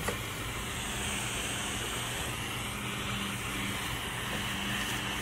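Steady low hum and hiss of room noise, with one faint click just at the start.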